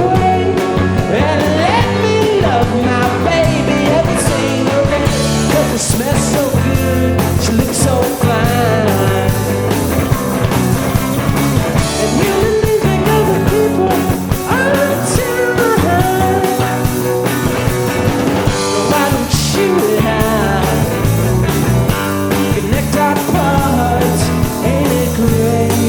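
A rock band playing live: drums and bass keeping a steady beat under a gliding melody line, with singing or a lead part riding on top.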